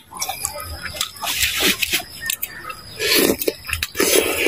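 Close-up mouth sounds of a man eating soft, fatty fish-head pieces in sour soup: slurping them off a spoon and chewing, in two or three short noisy runs.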